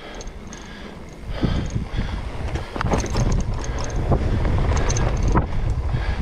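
Mountain bike descending a dirt trail: wind rushing over the microphone and a low tyre rumble, with scattered knocks and rattles as the bike goes over bumps. It grows louder about a second in and again around the middle.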